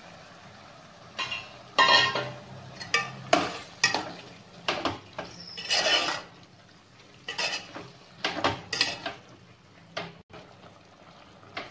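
Perforated metal spoon clanking and scraping against a metal pot as raw chicken pieces are stirred into a thick onion-tomato masala: a run of irregular strokes that thins out near the end.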